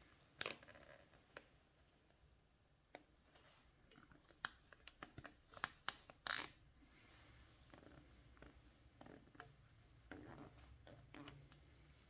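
Plastic cable tie being threaded and pulled tight around a bicycle's handlebar stem to hold a wicker basket: scattered sharp clicks, with a quick run of them and a short scratchy zip about five to six seconds in, between quiet handling rustle.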